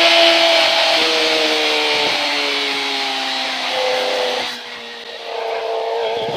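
Kawasaki ZX-25R's 250 cc inline-four engine running at high revs through an aftermarket exhaust, its high-pitched note falling in steps as the revs wind down, then holding a steady whine at cruise from about five seconds in, over wind noise.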